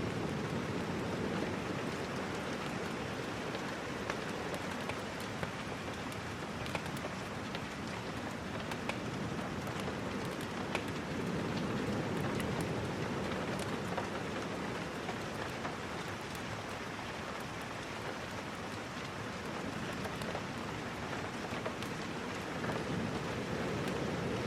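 Steady rain falling, with a low rushing sound that slowly swells and eases and many scattered sharp ticks of drops.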